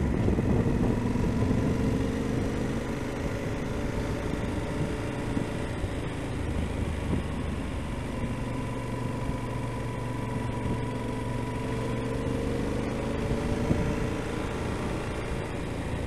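Yamaha XT1200Z Super Ténéré's parallel-twin engine running at a steady cruise, its note dipping and rising gently, under a rushing wind noise.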